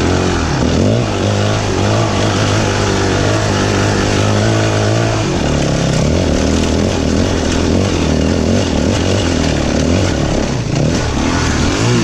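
Dirt bike engine running under throttle while riding, its pitch shifting and dropping about five seconds in, over a steady rushing noise.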